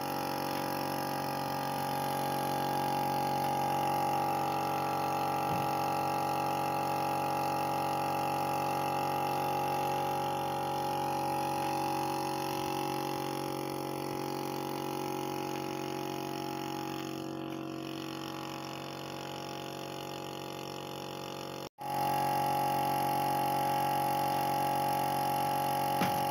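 Background music of sustained notes laid over the footage, with a brief dropout near the end.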